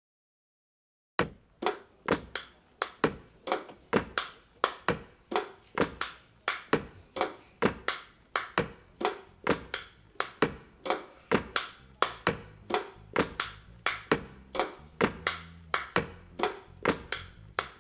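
Percussive music begins about a second in after silence: sharp struck notes, about two to three a second, each ringing briefly at shifting pitches. A low sustained tone joins near the end.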